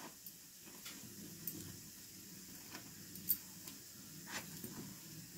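Faint clicks and taps of a wooden stick against a non-stick appam pan as the appams are turned over in their cups, the loudest click a little after three seconds in, over a low steady hum.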